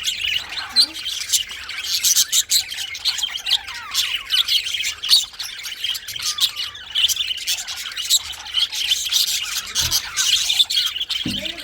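Budgerigars chirping and warbling continuously, a busy stream of short, high, overlapping chirps and squawks.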